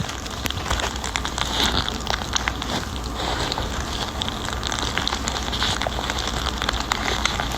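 Macaroni and cheese being stirred, a dense, continuous run of small wet crackles and clicks over a steady low hum.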